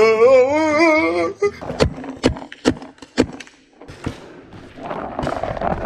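A drawn-out, wavering cry of "nooo" for the first second or so, then about half a dozen sharp pops of paintball markers firing over the next couple of seconds. A rough rushing noise rises near the end.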